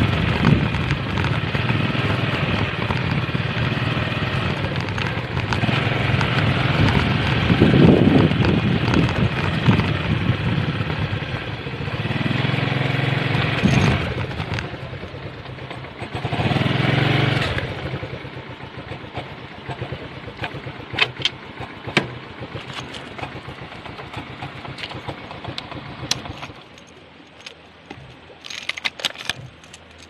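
Motorcycle engine running while riding over a rough dirt track, with several surges of revving, then running quieter before it drops away near the end; a few sharp clicks follow.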